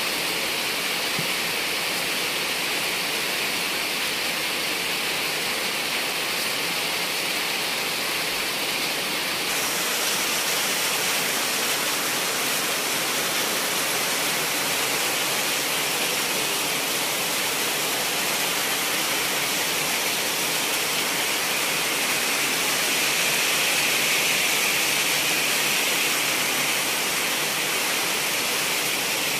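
Steady heavy rain falling on thick vegetation, an even hiss that holds level throughout and swells slightly in the last few seconds.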